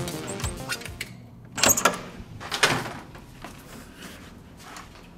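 Hotel room door with an RFID key-card lock being unlocked and opened: sharp clicks and clunks of the lock, lever handle and latch, the loudest about a second and a half in and another a second later, with fainter knocks after. Music fades out in the first second.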